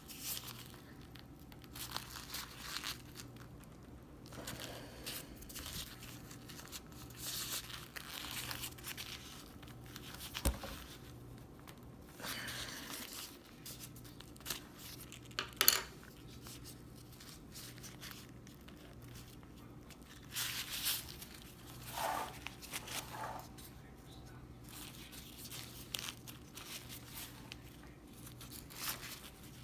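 Nylon hammock fabric and strap webbing rustling and crinkling in irregular spells as they are handled and worked through by hand, with a couple of sharp clicks.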